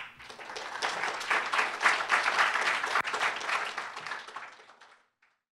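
Audience applauding: many hands clapping, swelling over the first second or so, then fading away and stopping about five seconds in.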